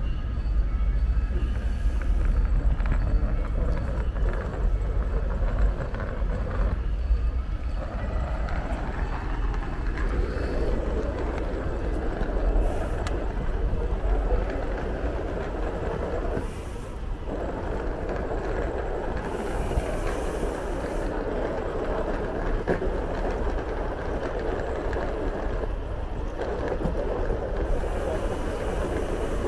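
Steady rumbling ride noise with wind buffeting the microphone, the hiss and rumble of rolling along city streets on a bicycle.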